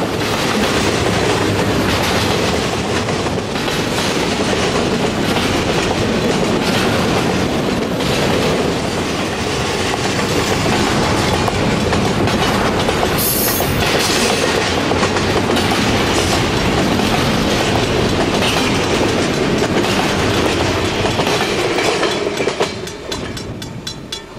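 Double-stack container cars of a long freight train rolling past, with steel wheels on rail making a steady loud din and repeated clicking. About 22 seconds in, the last cars go by and the sound falls away quickly.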